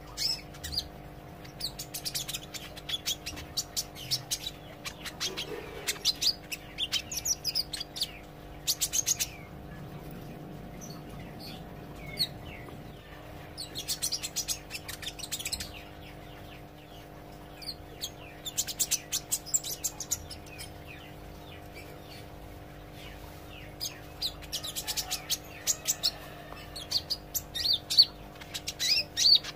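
A kolibri ijo sunbird singing in runs of rapid, high chirping, each a few seconds long with short pauses between. A steady low hum runs underneath.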